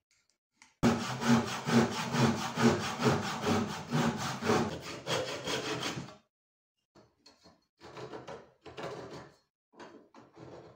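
Brass-backed hand saw (backsaw) cutting a wooden strip with steady back-and-forth strokes, about two a second. It starts about a second in and stops around six seconds in, followed by fainter, scattered strokes.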